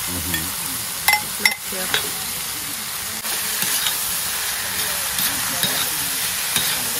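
Chopped sausage and ham sizzling steadily in hot oil in a cast-iron kazan as they are stirred with a metal spatula, which knocks sharply against the pot twice about a second in.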